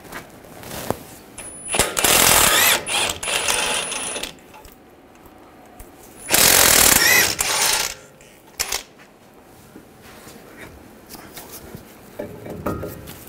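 Ratchet with a 21 mm socket backing out the two brake caliper bracket bolts: two loud bursts of ratcheting, one about two seconds in lasting a couple of seconds, the other about six seconds in and shorter. A few lighter knocks follow.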